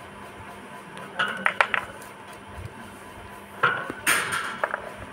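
An Alexandrine parakeet eating fresh green peas, its beak cracking and tearing at the pea pod. This comes as two short bursts of sharp clicks and crunches, one about a second in and one about a second before the end.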